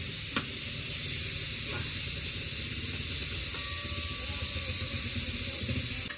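Steady hissing noise with a low rumble underneath and a faint click about half a second in.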